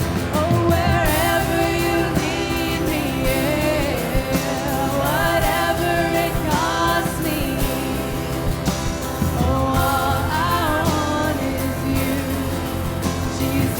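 A contemporary worship song performed live, with voices singing over a full band accompaniment.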